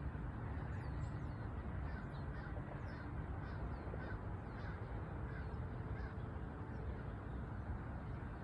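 Outdoor ambience: a steady low rumble with faint bird calls, a series of short chirps through the first few seconds.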